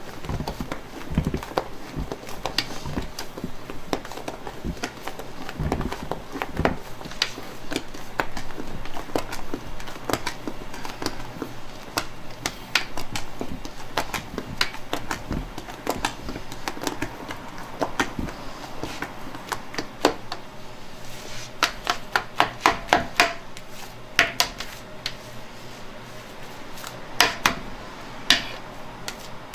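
A spatula stirring thick cake batter in a large stainless steel pot, scraping and clicking against the metal sides. Runs of quick taps come about two-thirds of the way through and again near the end.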